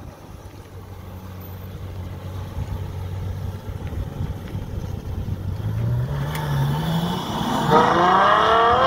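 Ferrari GTC4Lusso engine and exhaust pulling away at low revs, the note climbing gently. Near the end the engine is opened up and the exhaust note rises sharply through the revs under hard acceleration, the loudest part of the sound.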